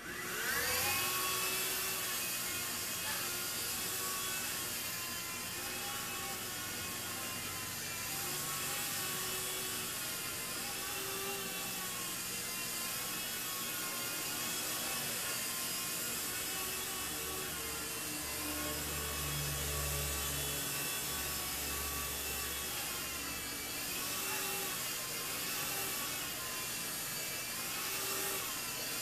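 Small electric RC helicopter flying, its motor and rotor whine spinning up quickly at the start, then rising and falling in pitch with the throttle as it is held in the air.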